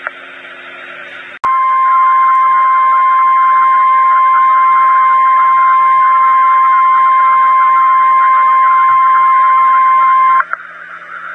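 Weatheradio Canada's 1050 Hz alert tone over a radio receiver: one steady high tone, switched on with a click about a second and a half in, held for about nine seconds, and cut off sharply near the end, with receiver hiss before and after. It signals that a severe weather alert bulletin follows.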